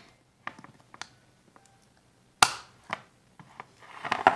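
Plastic snap-lock food container being closed over slime: a few sharp plastic clicks as the lid's latches are pressed shut, the loudest about halfway through, then a scrape near the end as the container is slid across the stone tabletop.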